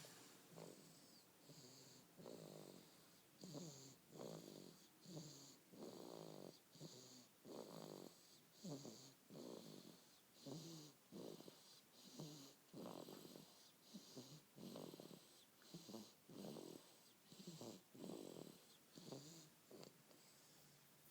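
A sleeping baby snoring softly, in quick, regular breaths a little faster than one a second, each with a faint whistly hiss.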